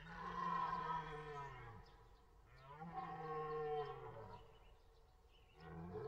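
Red deer stag roaring in the rut: two long, pitched calls, each rising and then falling in pitch, with a third beginning near the end.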